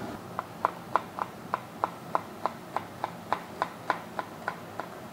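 Chef's knife chopping celery on an end-grain wooden cutting board: an even run of crisp knocks, about three a second.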